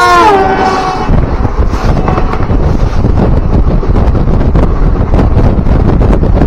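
A WAP-7 electric locomotive's horn sounding as it passes close by, its pitch dropping as it goes past and ending about a second in. Then the loud rush and clatter of its coaches going by on the next track, with wind on the microphone.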